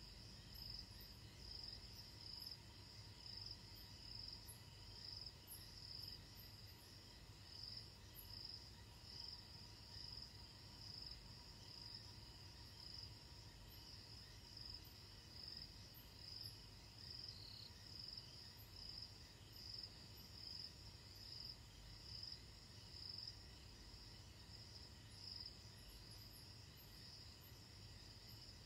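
Faint night insects chirping in a steady, pulsing high trill, a little under two pulses a second, over a low hum.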